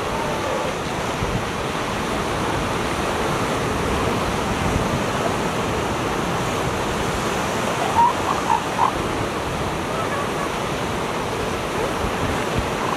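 Steady surf washing on the beach. About eight seconds in, three short high calls cut through it.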